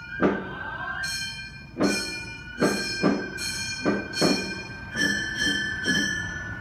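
Gion-bayashi festival music in rehearsal: a high bamboo transverse flute holds long notes and steps between pitches. Under it, small hand-held kane gongs are struck about nine times at uneven intervals, each strike ringing on metallically.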